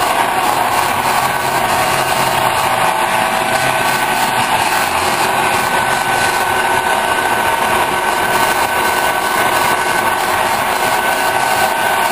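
Large metal lathe running steadily, a continuous mechanical drone with a steady high whine.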